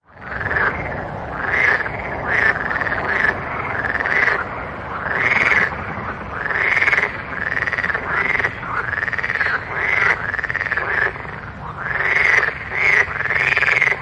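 Frogs croaking: a run of short calls, each rising and then falling in pitch, about one a second and sometimes overlapping, over a steady low background rumble.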